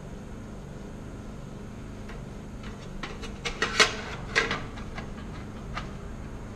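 Light metallic clanks and rattles from a forced-air heater's sheet-metal combustion chamber being handled and turned upright: a quick cluster of knocks about halfway through, the two loudest close together, then one small click near the end.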